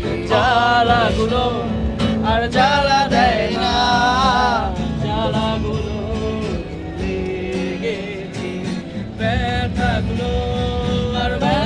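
A man singing to his own acoustic guitar. The sung phrases come in lines with pauses between them, and the guitar plays on underneath.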